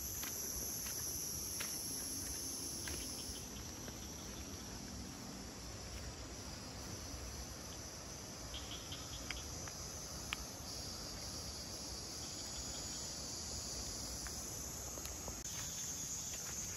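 Insects chirring steadily in high-pitched bands, the chorus easing a few seconds in and swelling again near the end, with a few scattered light clicks.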